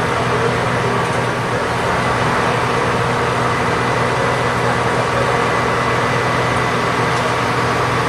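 Truck-mounted crane's engine running steadily with a constant low hum, under a wash of street noise.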